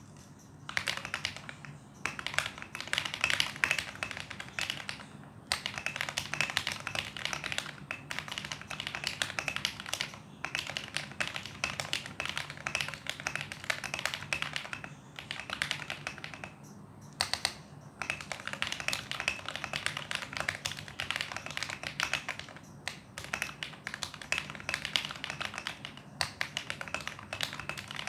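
Continuous typing on a foam-modded Tecware Phantom TKL mechanical keyboard with KTT Kang White linear switches and doubleshot ABS keycaps: fast runs of keystrokes broken by short pauses every few seconds.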